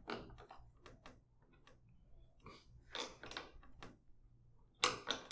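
Small metal clicks and scrapes of a wrench turning the nut on a battery's negative terminal post to clamp the cable lug, with a louder knock near the end.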